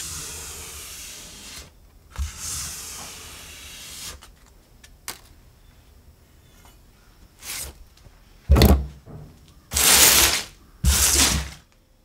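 A shop towel rubbing over a steel chef's knife blade in a series of scrubbing strokes, each half a second to two seconds long, with a few sharp clicks between. The last three strokes are the loudest.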